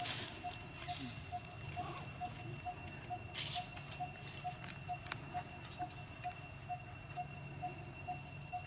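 Outdoor ambience with birds: a short low note repeated evenly about two and a half times a second, a high chirp that dips and rises about once a second, and a steady high-pitched tone, with a couple of brief rustles in the middle.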